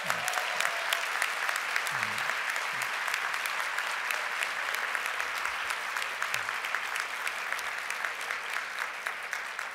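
A large audience applauding steadily: many hands clapping together, thinning out near the end.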